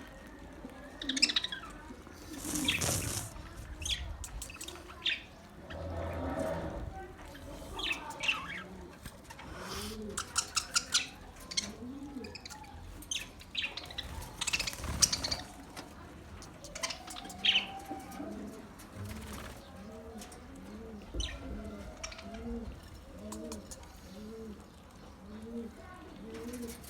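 Budgerigars chirping and chattering in short, sharp calls. In the second half a run of low cooing notes repeats about twice a second underneath.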